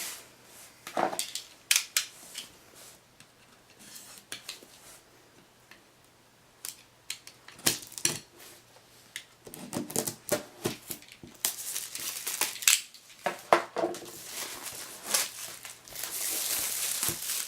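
Handling of a product box and its packaging: scattered clicks, taps and scrapes, a run of rustling in the middle, and a longer rustling scrape near the end.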